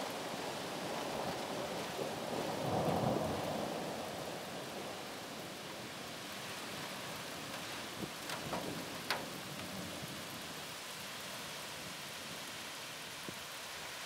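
Steady rain falling, with a roll of thunder that swells about three seconds in and then fades. A few sharp ticks stand out over the rain around eight to nine seconds in.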